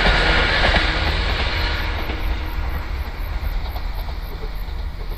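Sangi Railway 101 series electric train running away along the track, its wheel-on-rail rumble and hum fading steadily as it recedes.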